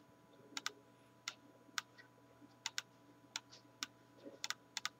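Faint, scattered clicks of a computer keyboard and mouse: about a dozen short, sharp clicks at irregular intervals, several in quick pairs.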